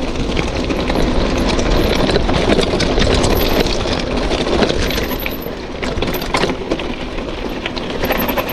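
Hero Octane Springbok 26 mountain bike descending a loose rocky trail: tyres crunching over stones while the bike rattles, with sharp knocks from rocks, the loudest about four and a half and six and a half seconds in. A low rumble of wind on the microphone runs underneath.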